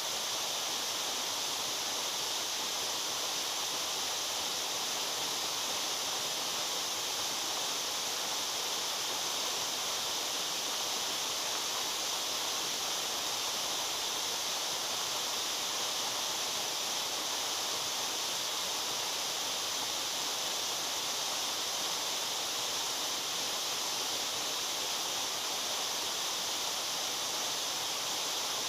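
Water pouring over Miyama Falls in a steady, unbroken rush, bright and hissy in tone, with no change in level.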